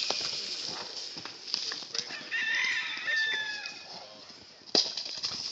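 A rooster crows once, a call of about a second and a half that falls in pitch at its end, over a steady high hiss. A few sharp knocks come through as well, the loudest near the end.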